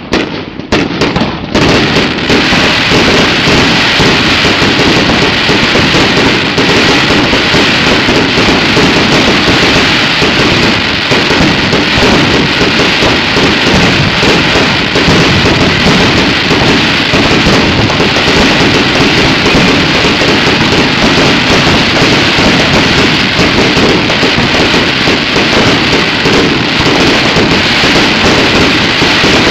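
Fireworks going off in a dense, continuous barrage. A few separate bangs come in the first second or so, then the bangs and crackles run together into one very loud, unbroken din.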